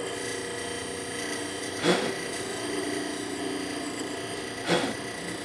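Wood lathe running steadily while a beading tool cuts beads into the turning bowl, with two brief scraping cuts, about two seconds in and near the end.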